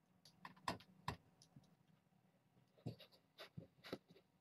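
Faint scattered clicks and taps from a mother cat and her kittens moving about among their toys and a wire carrier: two sharp taps about a second in, then a cluster of taps near the end.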